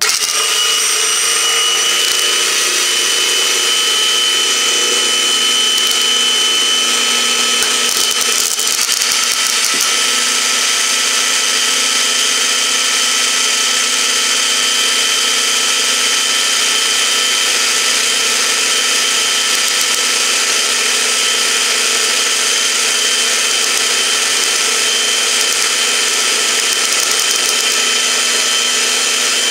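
Electric hand mixer switching on and running steadily at medium speed, a steady motor whine, its twin whisk beaters whipping egg whites into a thick foam.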